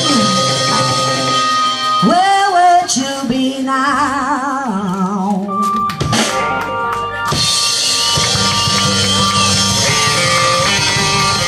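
Live rock band with a woman singing lead over drum kit, electric guitars and keyboard. About two seconds in the singer holds a long note with wide vibrato, then a quick run of drum hits about six seconds in brings the full band back in.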